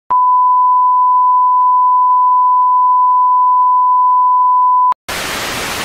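A steady electronic beep held on one pitch for nearly five seconds, then cut off sharply. It is followed at once by an even hiss of static like a detuned TV.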